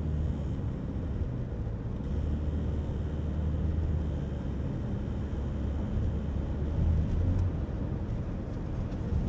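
Toyota Corolla Cross Hybrid giving off a low droning hum over a steady rumble. The hum swells louder about two seconds in and again about seven seconds in. This is the sound that the owner calls abnormal.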